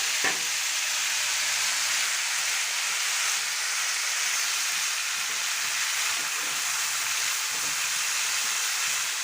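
Spiced mushroom and potato pieces sizzling steadily in hot mustard oil in a kadai.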